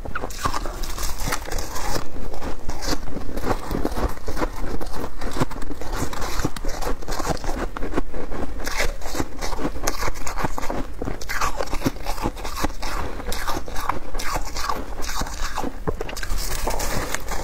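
Close-miked crunching and chewing of packed shaved ice: a continuous run of crisp crackles as the ice is bitten and ground between the teeth.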